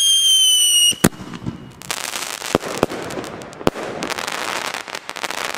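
Consumer fireworks: a whistle in a steady, slowly falling tone cuts off just before a second in. A sharp bang follows, then about three and a half seconds of dense crackling and sharp pops from the bursting stars.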